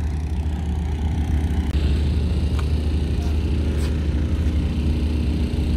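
A car running, with a steady low rumble of engine and road noise.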